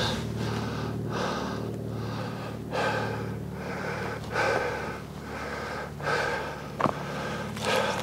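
A hiker breathing heavily from exertion, a breath about every second and a half, with one sharp tap a little before the end.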